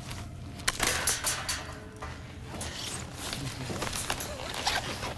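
A sharp click about half a second in, then several bursts of hissing and clattering over a steady low hum.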